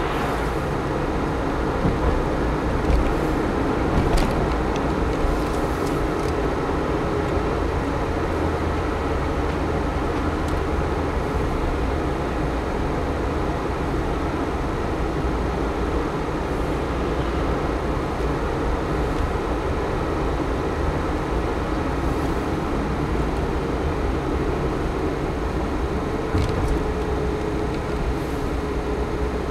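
Car driving along town roads: a steady mix of engine and tyre road noise heard from inside the car, with a few brief knocks and clicks.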